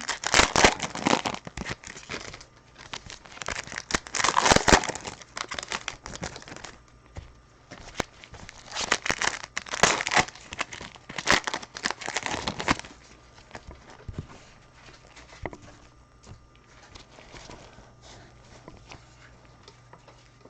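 Packs of 2020 Absolute Football trading cards being torn open, their wrappers crinkling and crumpling in repeated bursts. After about thirteen seconds this gives way to softer clicks and rustles of the cards being handled.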